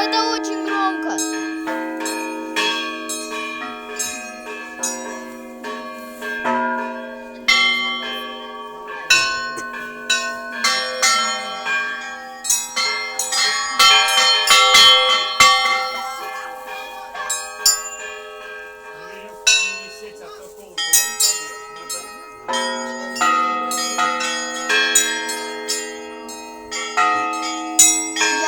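A set of church bells of many pitches rung irregularly by hand by visitors, the small bells struck in quick uneven clusters over the long ring of the deeper bells. The ringing thins out for a few seconds past the middle, then the low bells come back in.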